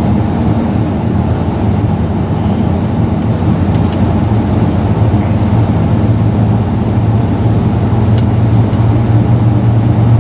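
A 1984 Chevrolet K20 three-quarter-ton 4x4 pickup's engine running as it drives, heard from inside the cab as a steady low drone mixed with road noise. The truck is running well after sitting for a month.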